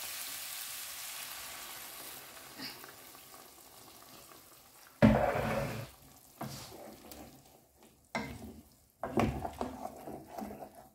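Chicken, broccoli and cauliflower sizzling in a non-stick frying pan, the hiss fading over the first few seconds. From about halfway, a wooden spatula stirs and scrapes the food around the pan in several bursts, the first one, about five seconds in, being the loudest.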